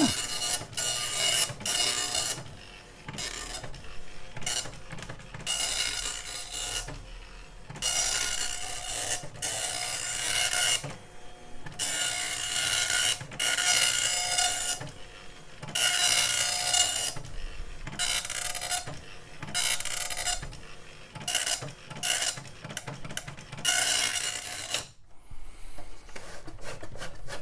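Dot-matrix printer (at least a nine-pin head) printing its self-test page: the print head buzzes across the paper in passes of about one to two seconds, with short pauses between lines. Near the end it pauses briefly, then makes a quicker run of short strokes.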